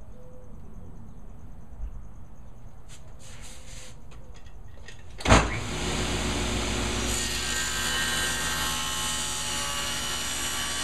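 Table saw switched on about five seconds in with a sudden loud start, then running steadily with the blade crosscutting a wooden board to length; a few light knocks of the board and fence being handled before it starts.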